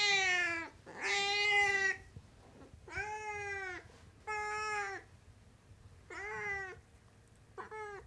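Sphynx cat meowing repeatedly: six short meows in a row, each under a second long, many dipping slightly in pitch at the end.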